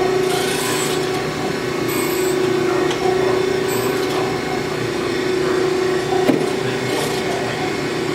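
Brown & Sharpe 818 Micromaster Series II surface grinder running dry: a steady spindle hum with the rough hiss of the grinding wheel cutting the work. The hiss swells briefly twice, and there is a single sharp click about six seconds in.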